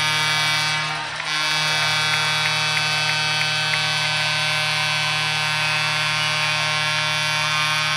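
A loud, steady hum with many overtones, dropping out briefly about a second in.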